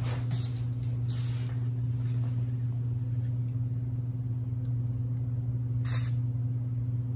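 Aerosol spray can hissing through its thin straw nozzle in short bursts, a faint one about a second in and a louder brief one near the end, over a steady low electrical hum.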